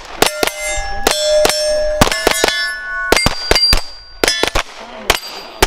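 Compact semi-automatic pistol fired in several quick strings of shots at steel targets, each hit answered by the steel plate ringing with a sustained metallic tone.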